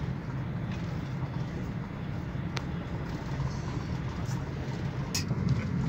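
Tour bus driving along a dirt track, heard inside the cabin: a steady low engine and road rumble, with a couple of sharp clicks or rattles, about two and a half and five seconds in.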